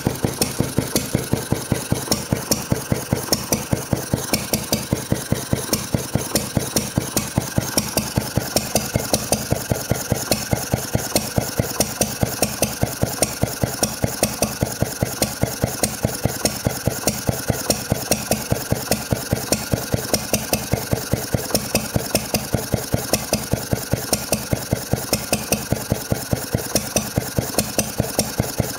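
Wolseley WD8 single-cylinder stationary engine running steadily with a rapid, even firing beat, its choke opened right back. It is not running quite right: with the choke fully open there is a bit of a misfire.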